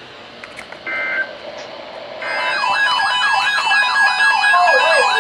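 A short electronic beep about a second in, then from about two seconds on several electronic siren and alarm tones warbling over one another, rising and falling in pitch.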